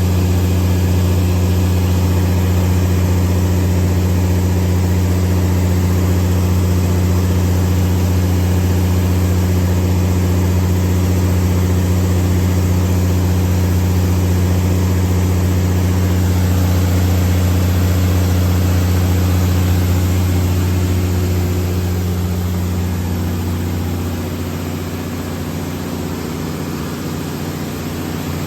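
The MTU 12V2000 V12 diesel engine of a Kohler 750 kW generator set, running steadily at constant speed with a deep, even hum. About three quarters of the way through, the sound gets quieter and its low hum changes.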